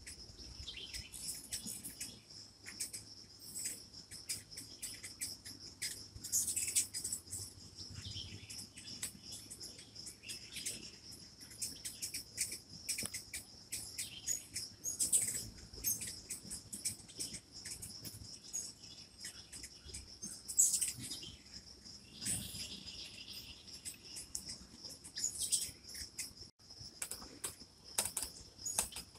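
Many short, sharp bird chips and chirps, scattered irregularly, over a steady high insect drone. The chips fit hummingbirds squabbling around a feeder.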